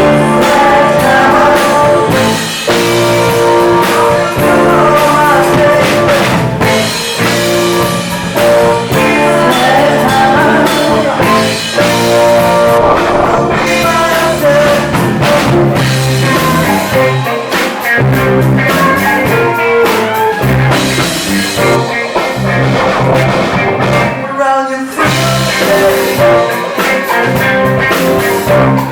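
Live band playing a rock/soul cover with a lead singer, drum kit and electric guitar.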